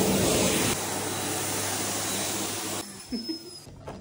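Electric hands-in hand dryer blowing steadily with a low hum, dropping somewhat in level about a second in and cutting out near three seconds in. A few soft knocks and rubbing sounds follow as a wet running shoe is handled at the dryer's opening.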